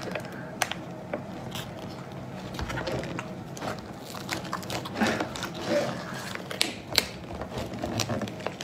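Shell of a large raw spiny lobster creaking and cracking as it is twisted and pulled apart by hand, head from tail, with scattered sharp clicks and crackles.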